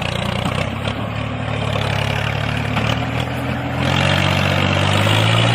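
Steady motor drone of model tractors pulling a load. About four seconds in it gets louder and rises slightly in pitch, as if working harder.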